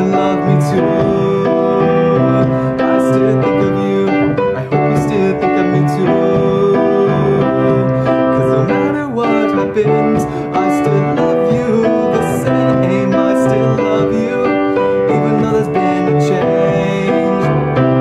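Piano ballad: sustained piano chords and melody, with a man's voice singing over them.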